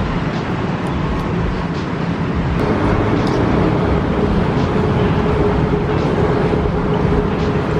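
Steady low rumble of a running vehicle engine, with a steady hum joining about two and a half seconds in and a few faint light clicks.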